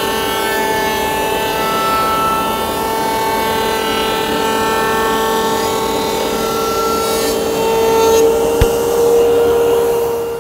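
Router in a router table running at full speed with a steady high whine while its bit cuts a hardwood cocobolo strip fed past it on a support board. A single sharp tick comes about eight and a half seconds in.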